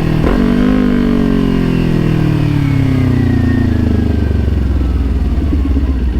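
Motorcycle engine with its revs falling steadily over about five seconds as the bike slows, then settling into a low, steady run near the end.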